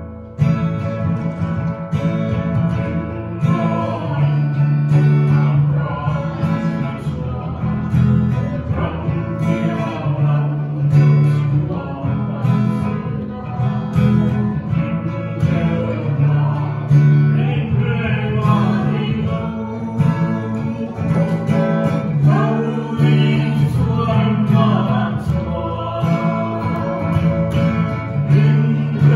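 Acoustic guitar strumming chords to accompany a man and a woman singing a gospel song as a duet.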